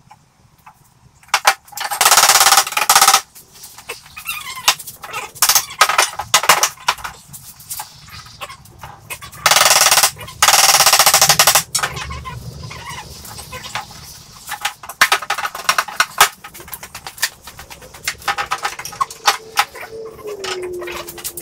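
Workshop clatter of wooden door boards and clamps being handled on a workbench, with many sharp knocks. Two loud bursts of rapid rattling come about two and ten seconds in, each a second or two long.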